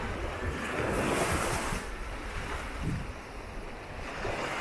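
Surf washing up a sandy beach, one wave swelling about a second in and falling away, with wind buffeting the microphone.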